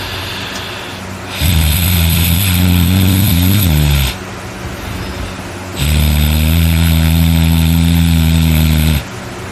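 A man snoring very loudly: two long, low snores of about three seconds each, the first wavering in pitch near its end, the second steady.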